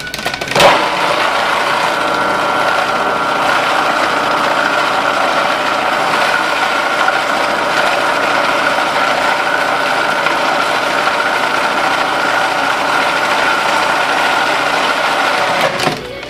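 Food processor running steadily with a motor whine, its blade churning a thick mix of softened butter and herbs. It starts just under a second in and stops near the end.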